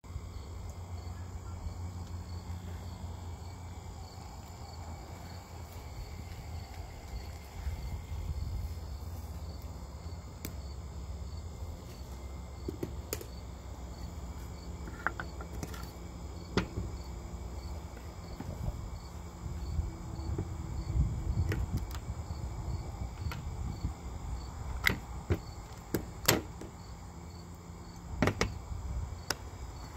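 Crickets chirping steadily over a low rumble, with scattered knocks and clunks as a glass display case is lifted off a model engine and its wooden base is handled on a glass tabletop. The sharpest knocks come in the last few seconds.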